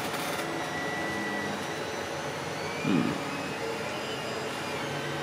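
3D printers running: a steady whir of cooling fans with stepper-motor tones that hold, shift and glide in pitch as the print heads move. A brief louder warbling sound about three seconds in.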